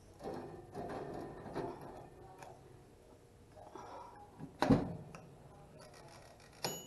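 Toast and a plate handled at a toaster oven, then the oven's door shut with one loud knock a little past the middle. Near the end comes a lighter click with a brief metallic ring.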